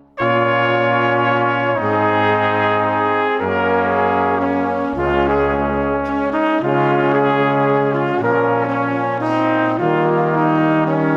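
Background music: brass instruments playing slow, sustained chords that change about every one to two seconds.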